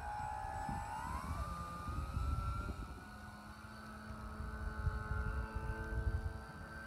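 A Dynam Tiger Moth RC biplane's brushless electric motor and propeller whining in flight. The whine rises in pitch over the first two seconds and then holds steady, over a gusty low rumble.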